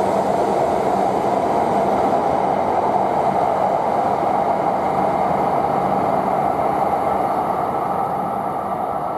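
Shinkansen train pulling out of the station past the platform: a steady rushing run of wheel and motor noise with a low hum underneath, fading slowly toward the end as the train draws away.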